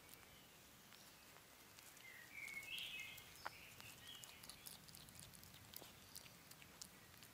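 Faint, quick clicks and smacks of a European hedgehog chewing and snuffling with its nose in the grass close by. A brief, faint bird chirping comes about two to three seconds in.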